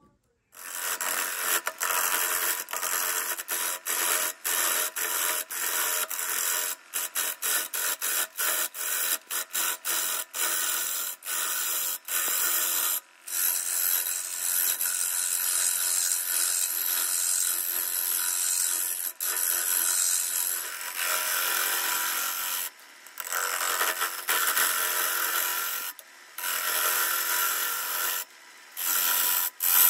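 Wood being worked on a lathe: a tool rasps against a spinning live-edge maple bowl blank. It starts about half a second in and is broken by many short lifts, a few longer pauses coming in the second half.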